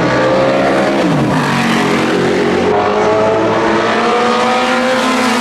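Group C race car engines running hard on track. About a second in, one engine's pitch drops sharply, as on a downshift or a car passing. Then an engine's pitch climbs steadily as it accelerates.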